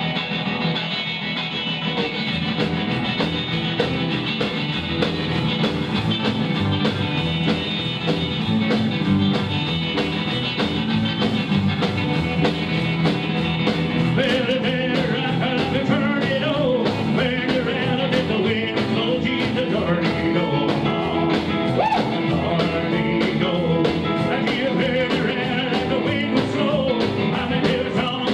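Live rockabilly band playing a song on hollow-body electric guitar, upright double bass, piano and drums. The drums come in about two seconds in, and a man starts singing about halfway through.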